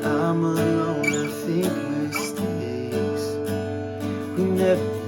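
Acoustic guitar strumming chords, with a sung vocal line over it in the first couple of seconds and briefly again near the end.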